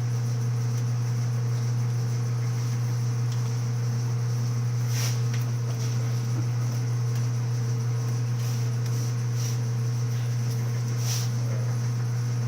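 Clausing Model 4911 toolroom lathe running, a steady low hum with a fainter higher whine and a few light ticks.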